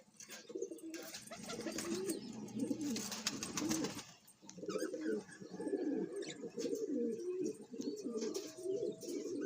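Pigeons cooing: low, warbling coos repeating almost without pause, with a brief lull about four seconds in.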